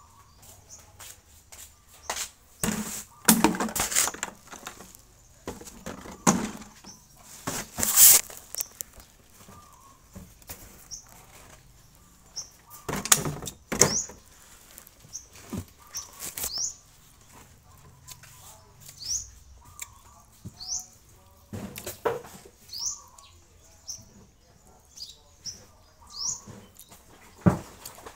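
A man eating with his fingers close to the microphone: irregular smacking, chewing and clicks as food is handled and eaten. Short, high rising bird chirps repeat every second or two from about halfway through.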